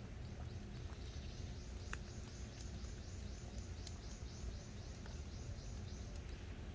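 A high chirping call repeated rapidly, about four times a second, over a steady low outdoor rumble.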